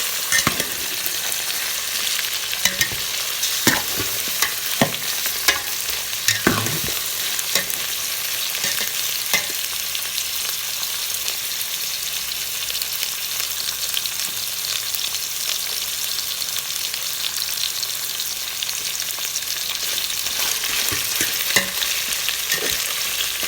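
Chicken wings sautéing with onion, garlic and ginger in a pan, sizzling steadily. Sharp clicks of stirring against the pan come in the first several seconds and again near the end.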